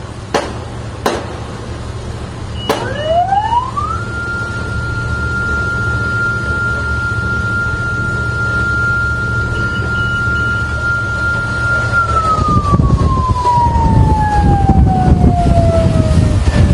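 Three sharp cracks of warning shots in the first three seconds, then a patrol boat's siren winds up to a single high steady wail, holds for about eight seconds and slowly winds down. A steady low engine rumble runs underneath, and rushing wind noise grows near the end.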